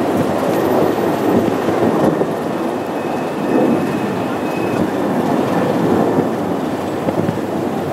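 Boeing 747's four jet engines at takeoff thrust as the airliner climbs out: a loud, steady rumble, with a faint high whine in the middle.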